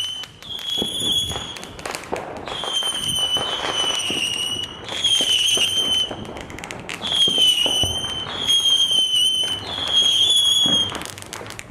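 A string of whistling fireworks: about eight high, near-steady whistles, each lasting about a second, follow one another a second or so apart, with crackling pops of bursting fireworks in between.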